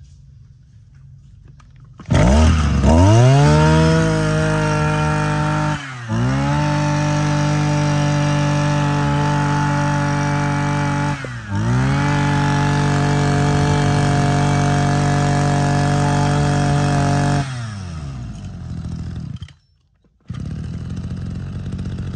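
Maruyama MBS 2630T brush cutter's 26cc two-stroke engine catches about two seconds in and runs up to a high, steady speed, dipping briefly twice and picking up again. Near the end it drops back to idle, with each firing beat distinct.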